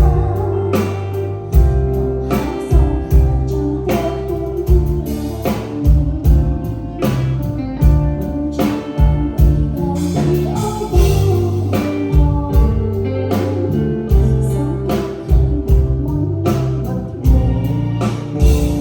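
Live band music with a woman singing over it: drum kit, bass and guitar playing at a pub sound check.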